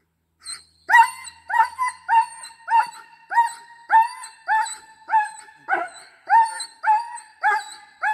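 German Shepherd barking on the leash: a long run of high-pitched barks, about two a second, beginning about a second in.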